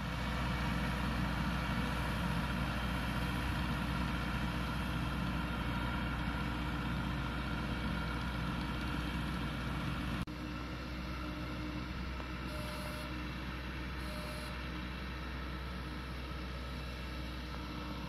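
Kubota combine harvester's diesel engine running steadily with a low, even hum. The level drops slightly and abruptly about ten seconds in, then holds steady.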